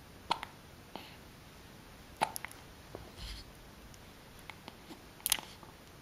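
A newborn baby's small breathing and mouth noises: a scattering of short squeaks and clicks, the loudest about five seconds in.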